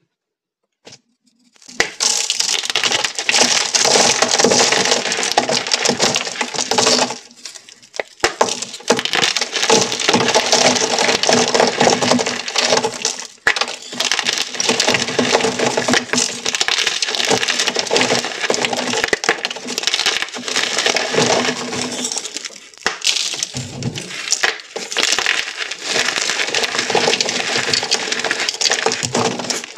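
Painted blocks of gym chalk crushed and crumbled between bare hands: dense, continuous crunching and crackling of breaking chalk. It starts about two seconds in, with brief lulls around seven, thirteen and twenty-three seconds in.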